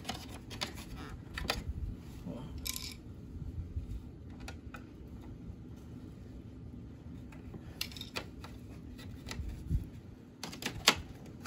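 Scattered plastic clicks and taps as a grille is handled and pressed into a car's plastic bumper opening, with one sharp click near the end, over a low steady background rumble.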